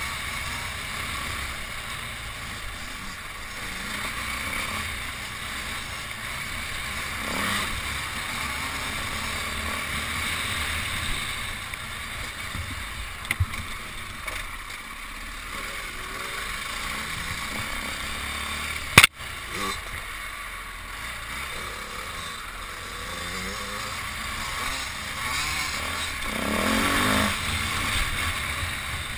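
Dirt bike engine running as the bike rides along a trail, heard through wind buffeting on the microphone, with the pitch and level rising and falling with the throttle. A single sharp knock about 19 seconds in.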